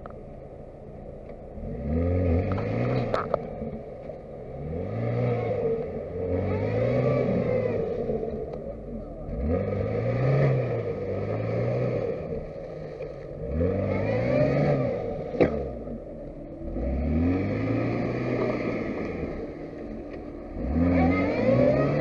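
Lada Niva 21214's 1.7-litre four-cylinder engine revving hard and easing off again and again, about seven times, as the 4x4 churns through a muddy stream with its wheels spinning and throwing mud. A single sharp knock comes about two-thirds of the way through.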